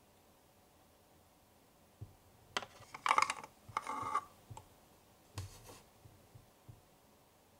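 Miniature toy baking tray sliding into and out of a red plastic toy oven, clicking and scraping against its shelf. Quiet at first, then a run of small clicks from about two seconds in, loudest around three to four seconds, with one more scrape a little later.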